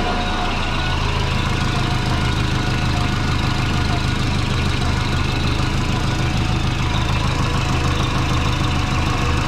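Turbocharged Subaru flat-four idling steadily, with the rapid chuffing of an exhaust leak somewhere low on the exhaust. The owner suspects a flange that isn't sealing flat.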